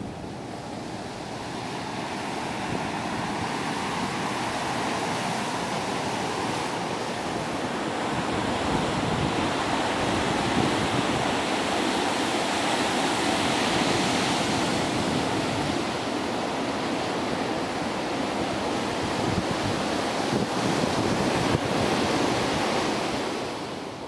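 Atlantic surf breaking and washing up a sandy beach, a steady rush of waves that grows louder over the first several seconds.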